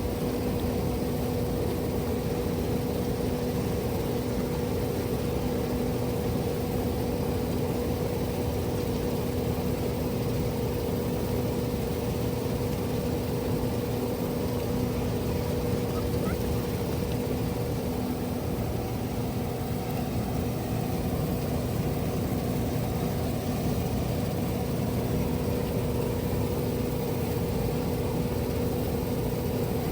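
Machinery running steadily: a constant hum with one unchanging pitch and its overtone, over a broad rushing noise.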